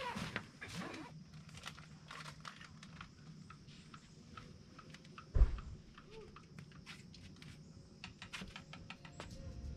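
Scattered light clicks and taps, irregular, with one dull thump about five and a half seconds in.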